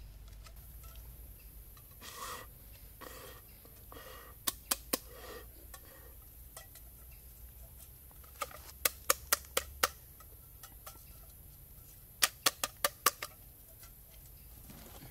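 Sharp clicks of a hand tapping on a hard plastic tube, in three quick runs of three to six taps.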